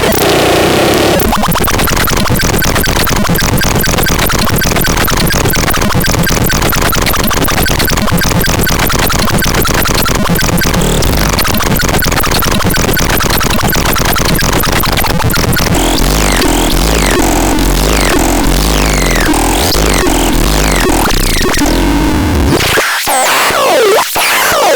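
Harsh electronic noise from the BEXDEX sound device: a dense, fast stuttering pulse for the first half, then a deep rumble under wavering, gliding squeals, with a couple of brief cut-outs near the end.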